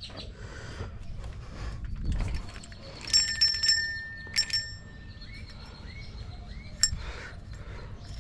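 Light metallic clinks with clear high ringing tones, a cluster about three seconds in and another strike a second later, then a sharp click near seven seconds, over quiet rustling and handling noise.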